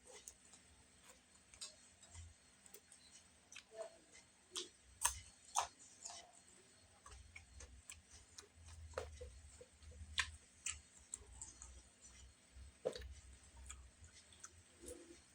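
Faint, irregular clicks and taps of someone eating a plated meal, with cutlery knocking against the plate; a few sharper clinks about five and ten seconds in.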